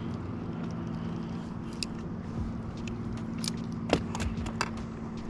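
A steady low motor hum with a few light clicks and taps over it, the sharpest about four seconds in.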